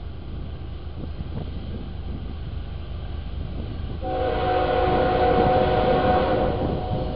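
Approaching train locomotive rumbling low, then sounding its air horn in one long chord-like blast about four seconds in, held for about three seconds.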